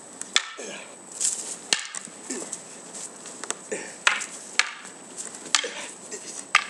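Wooden practice swords (bokken) clacking together in sparring: about seven sharp, irregularly spaced wood-on-wood strikes.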